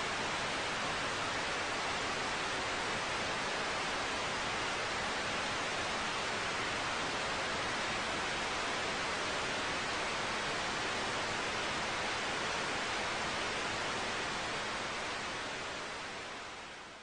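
Analogue television static: a steady hiss of white noise that fades out near the end.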